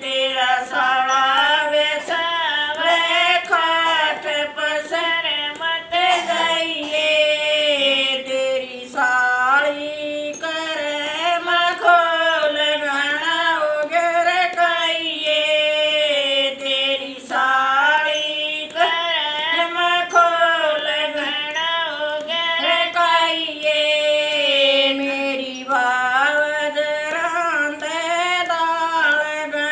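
Two women singing a song together, a continuous melody of held, wavering notes with short breaks for breath.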